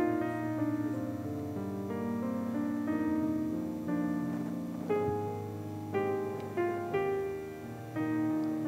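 Slow instrumental piano music: held chords, with a new chord or note struck every second or so.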